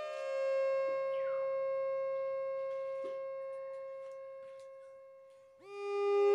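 Background music of slow, sustained chords: one chord fades away and a new one swells in about five and a half seconds in.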